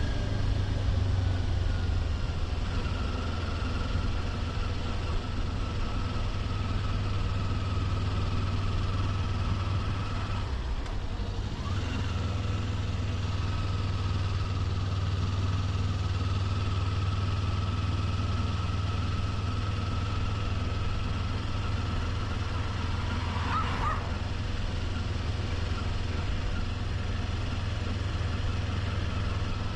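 Kawasaki Ninja 400's parallel-twin engine running steadily at an even pitch, easing off briefly about eleven seconds in.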